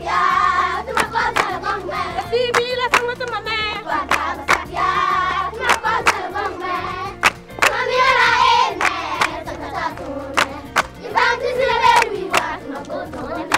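A group of children singing a song together, accompanied by steady rhythmic hand clapping.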